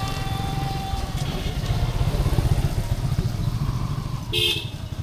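A motor vehicle, likely a motorcycle, running close by with a steady low engine rumble, and a short horn beep about four seconds in.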